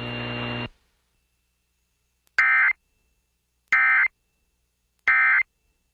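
Emergency Alert System end-of-message data bursts: three short identical digital bursts about a second apart, signalling the end of the flash flood warning broadcast. Before them, a steady broadcast hum cuts off within the first second.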